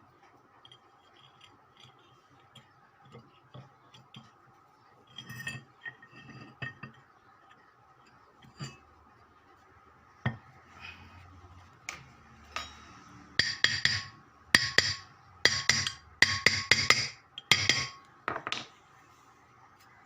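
Hand tools working on metal motor parts: scattered light clinks and taps, then near the end a run of about six short, loud, harsh strokes.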